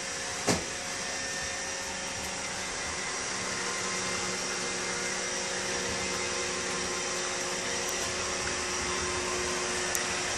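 Steady machine-like whirring hum with a few faint steady tones in it, and one sharp tap about half a second in, with a smaller click near the end.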